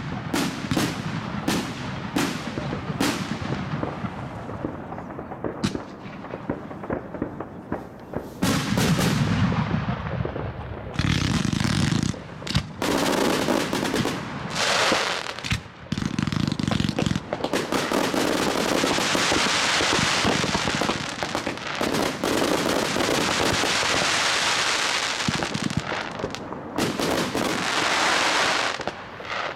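Consumer firework cakes firing: separate launches and bursts at first, then overlapping salvos. About halfway through these build into a dense, continuous barrage of shots and bursts that stops near the end.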